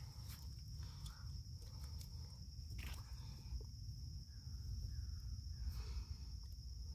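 Outdoor garden ambience: a steady low rumble with an unbroken high-pitched tone over it, and a few faint clicks.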